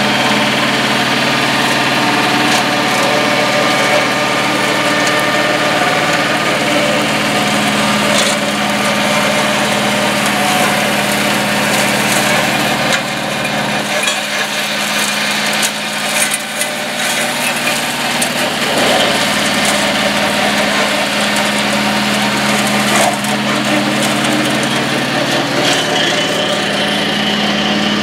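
The 954 cc two-cylinder diesel of a mini crawler tractor running steadily under load while its Zanon TML 115 flail mower shreds weeds and brush, with scattered sharp clicks and knocks.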